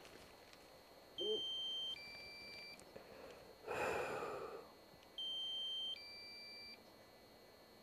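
Drone remote controller's low-battery warning: a faint two-part electronic beep, one tone and then a pair of different tones, repeating every four seconds. A short breathy rush of noise falls between the two beeps.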